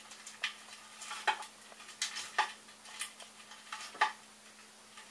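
Irregular light clicks and scrapes of a bundle of stepper-motor wires and their plastic connectors being pushed through the 3D printer's frame, about eight in the space of five seconds.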